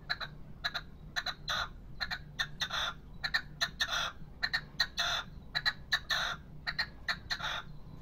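Caged young male red-legged partridge (a 'pollo' decoy bird) calling: a run of short, sharp notes, about three a second, that grow longer and louder through the middle and shorten again near the end.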